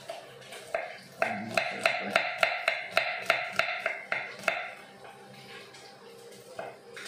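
Kitchen knife chopping garlic on a wooden cutting board: a quick run of about a dozen knocks, roughly four a second, then slower, fainter cuts.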